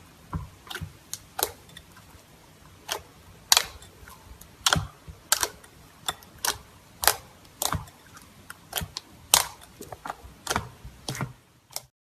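Slime being squeezed and poked, giving a series of sharp, irregular clicks and pops, about one or two a second, as air pockets in it snap. The sound stops abruptly near the end.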